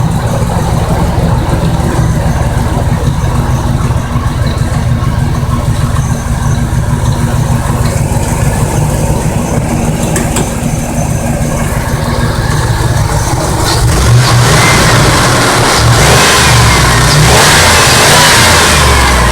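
1998 Ford Expedition V8 engine running steadily after a vacuum leak was fixed by rerouting hose around the plastic vacuum line. About fourteen seconds in it gets louder, as if revved.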